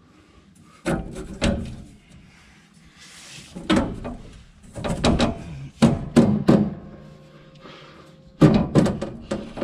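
Clunks and knocks in short clusters from the Onan generator's sheet-metal housing as its covers and fasteners are handled and refitted.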